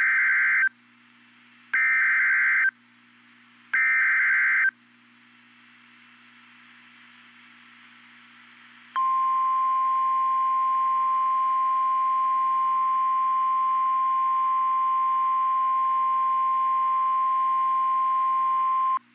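Emergency Alert System SAME header: three short bursts of warbling digital data, about a second each, announcing a severe thunderstorm warning. After a few seconds of faint hiss comes the NOAA Weather Radio 1050 Hz attention tone, one steady high tone held for about ten seconds and cut off sharply.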